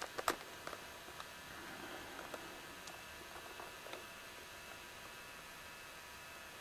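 Faint, steady electrical hum with a few thin tones above it, over low hiss. There are a few sharp clicks in the first half-second and light ticks now and then over the next few seconds.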